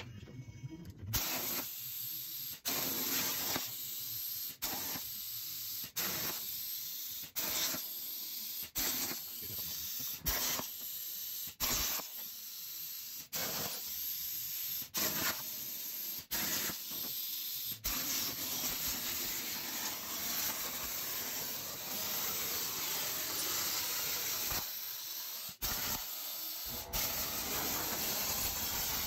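CNC plasma cutter's arc hissing as it cuts aluminum sheet. The hiss runs in short stretches of one to two seconds that stop and start abruptly, then in a longer unbroken run of about seven seconds.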